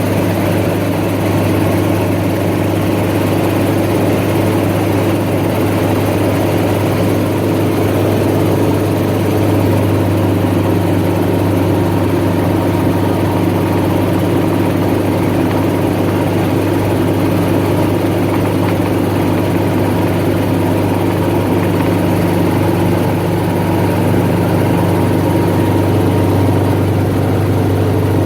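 Helicopter engine and rotor running with a steady, loud low drone, heard from inside the cabin.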